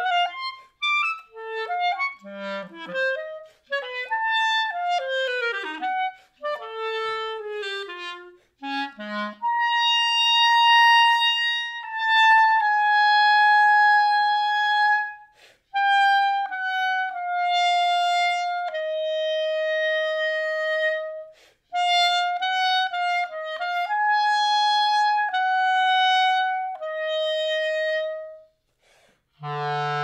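Solo clarinet playing contemporary music: quick, short notes leaping widely in pitch for about the first nine seconds, then long held notes that step slowly downward, with a brief break near the end.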